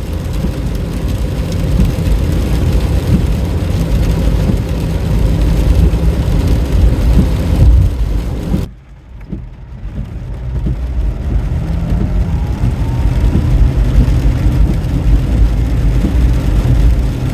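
Road and engine noise inside a moving car: a steady low rumble of tyres and engine. About nine seconds in it drops off abruptly and picks up again more quietly, with a faint rising whine as the car gathers speed.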